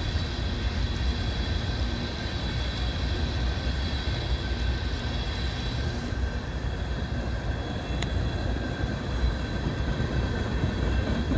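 Empty coal hopper cars rolling past on the rails: a steady low rumble of wheels on track with a thin, steady high whine over it, and one sharp click about eight seconds in.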